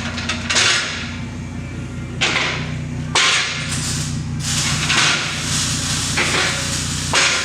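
BMW E46 Touring engine running through a muffler-delete stainless-steel exhaust with twin tips, a steady idle beneath. Several short, loud rushes of exhaust noise break over it, the longest about three seconds in.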